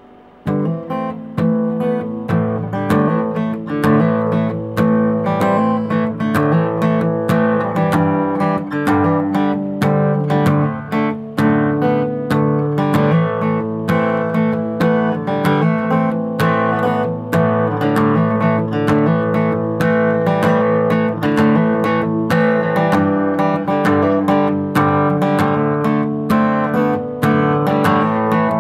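Taylor acoustic guitar playing a folk-style picking and strumming pattern, starting about half a second in and going on steadily. It is heard through a DSLR's built-in microphone, with no added processing.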